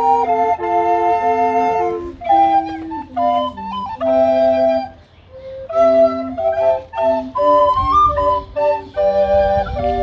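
A recorder ensemble of soprano, alto, tenor and bass recorders plays a multi-part piece in harmony, with a brief break between phrases about five seconds in.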